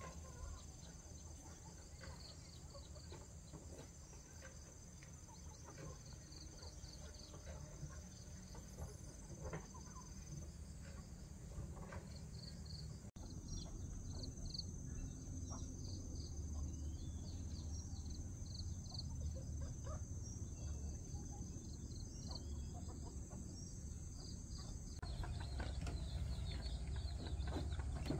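Outdoor country ambience dominated by insects: a steady high-pitched drone and rapid repeated chirping over a low rumble. The background shifts abruptly twice, about halfway through and near the end.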